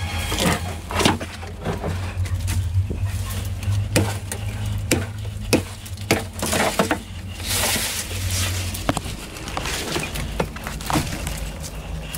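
A machete hacks at a woody sapling growing against a concrete wall, with sharp, irregular blade strikes about once a second. Branches and leaves rustle as they are pulled, over a low steady hum.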